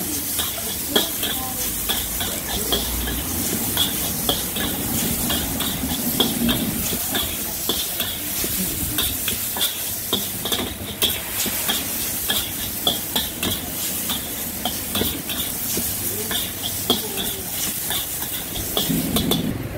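Long yellow noodles stir-frying in a steel wok: a steady sizzle of hot oil, with a metal spatula scraping and clacking against the pan in quick, irregular strokes as the noodles are tossed.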